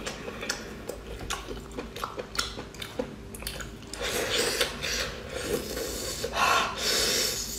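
Close-up eating sounds of shellfish being pulled apart and eaten by hand: small sharp clicks and crackles of shell over the first few seconds, then louder sucking and chewing from about four seconds in as the shell is put to the mouth.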